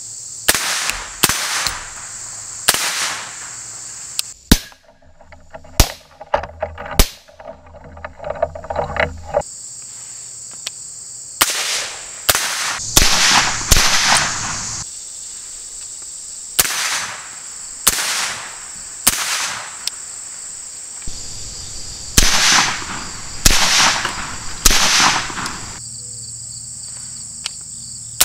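A 10.5-inch AR-15 pistol in .223, fitted with a Griffin Armament Recce 7 suppressor, fired in irregular strings of single shots and quick doubles, about twenty shots in all. Some hits ring off hanging steel plates.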